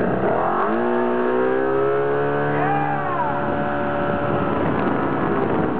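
Tow boat's engine revving up under full load to pull a wakeboarder up out of the water: its pitch rises over the first second and a half, then holds steady at speed.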